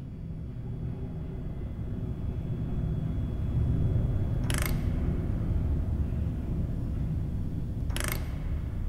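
A low rumble that swells louder over the first few seconds and then holds, with two short hissing bursts, one about halfway through and one near the end.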